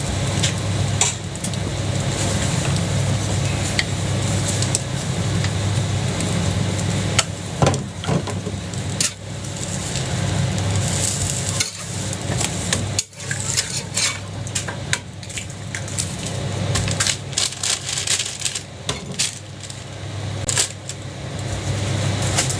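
Metal spatula scraping and tapping on a hot jianbing griddle while the pancake sizzles, in scattered clicks and scrapes over a steady low hum.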